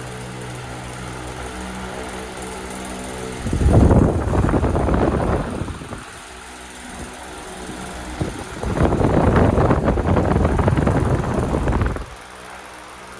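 Arge Max 60 cm wall fan running: a steady motor hum, broken twice by loud rushes of its airflow buffeting the microphone, first briefly and then for about four seconds.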